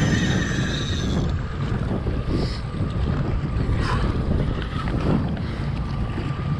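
Strong wind buffeting the microphone and rough sea chop washing against a jet ski's hull, a dense, steady rumble. A faint steady whine stops about a second in.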